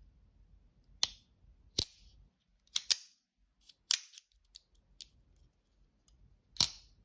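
Demko AD20 Shark Lock folding knife with a carbon fiber handle, its blade repeatedly swung open and snapped shut, giving about nine sharp metallic clicks at irregular spacing. The pivot has been cleaned of thick, high-viscosity oil and retuned, so the blade swings freely.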